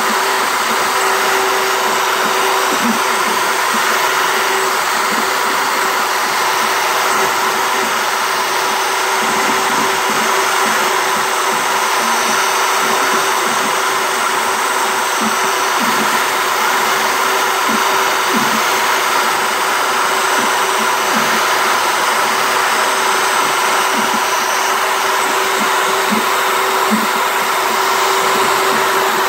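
CNC router spindle motor running steadily as its bit carves into a wooden plaque, a constant motor whine over the noise of the cut.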